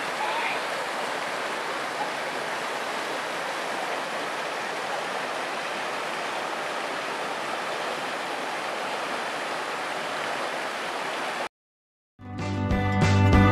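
River water rushing over rocky rapids, a steady rush that cuts off suddenly about eleven and a half seconds in. Music starts a moment later.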